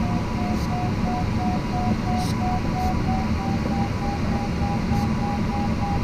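Glider variometer beeping about three times a second, its pitch rising a little over the first few seconds as it signals climbing air. Under it runs a steady rush of airflow in the cockpit.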